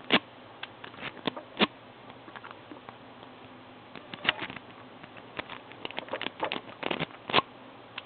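Irregular sharp metallic clicks and scrapes of lock-picking tools working in a pin-tumbler deadbolt, with a busier run of clicks about six to seven seconds in.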